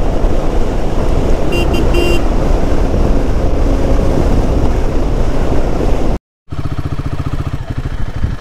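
Wind rushing over the microphone of a Royal Enfield Himalayan 450 ridden at highway speed, with a vehicle horn beeping in a few short toots about two seconds in. About six seconds in the sound cuts off abruptly and a steady, rapid pulsing sound follows.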